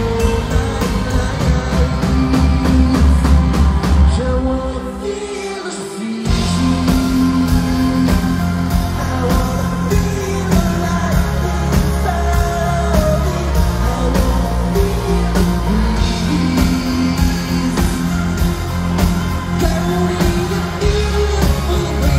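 Live rock band playing with a singer, electric guitar and a steady beat. About four seconds in, the low end drops out and the music thins for a couple of seconds, then the full band comes back in.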